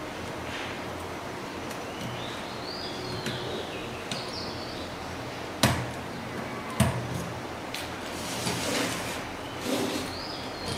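Two sharp knocks about a second apart, from parts or tools being handled while an IPL power supply is assembled, over a steady hiss, with a few short high bird-like chirps.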